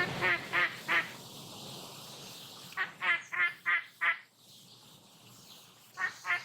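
Duck quacking in three quick runs of four or five short, nasal quacks, with pauses between the runs.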